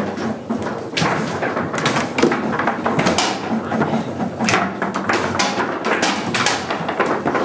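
Foosball table in play: irregular sharp knocks as the ball is struck by the rod figures and bounces around the table.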